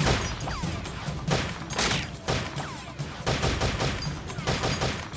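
Battle gunfire, with rapid, overlapping shots from several guns in dense volleys. It breaks in abruptly.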